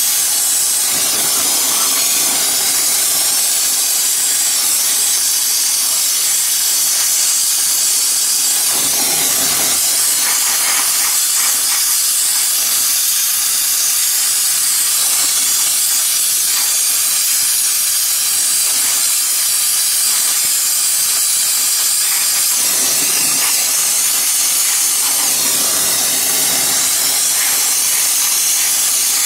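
Gas brazing torch flame hissing steadily while it heats a crack in a cast-iron woodworking plane that is being brazed with flux-coated brass rod.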